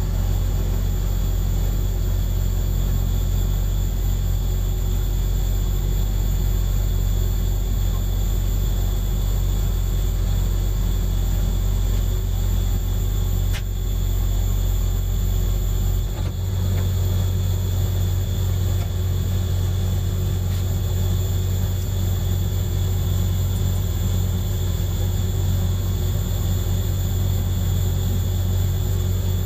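Diesel railcar's engine idling steadily, heard from the cab while the train stands at a station: a low, constant hum and rumble. About halfway through, the hum steps up to a slightly higher pitch.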